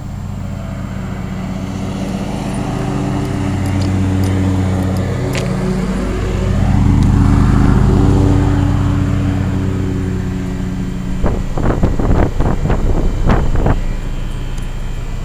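1987 Carrier Round One 3-ton central air-conditioner condensing unit running steadily, a low compressor and fan hum. A passing car swells up and fades away in the middle. Irregular rumbling bumps come near the end.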